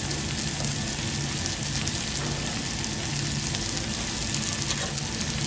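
Chicken bones and chopped vegetables sizzling steadily on a hot flat-top griddle, with a continuous crackle of frying.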